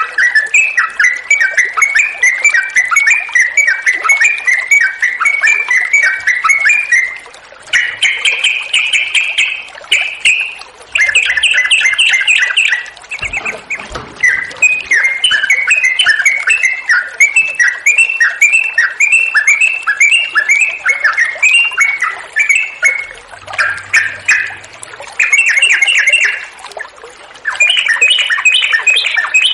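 Yellow-vented bulbul singing long, rapid runs of bubbly notes, broken by short pauses, over a steady hiss of running water.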